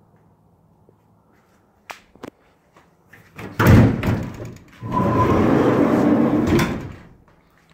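Door latch clicking twice, then a steel door of a 1973 Ford Econoline van opening with a loud clunk, followed by about two seconds of rough rumbling and scraping noise.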